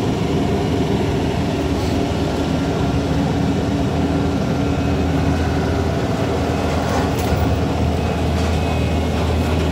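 Heavy truck engine running steadily, a low even drone that does not change in level.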